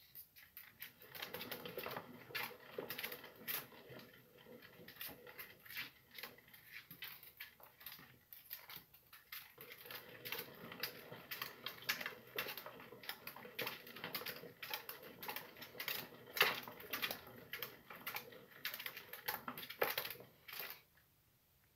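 Sugar glider running in an enclosed plastic exercise wheel: a fast, uneven clatter of small feet and the spinning wheel. It eases off briefly about nine seconds in and stops near the end.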